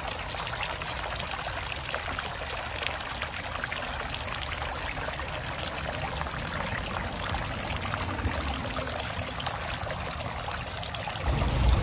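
Tiered garden fountain running: water trickling and splashing steadily from its bowls into the basin below. A low rumble comes in near the end.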